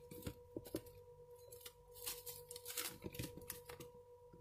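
Faint, scattered clicks and light rustling of small objects being handled around a camp stove, over a faint steady high-pitched tone.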